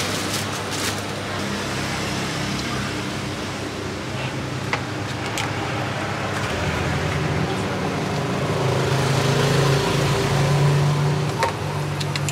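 Street traffic: a steady hum of passing motor vehicles, with an engine growing louder from about the ninth to the eleventh second, and a couple of light clicks.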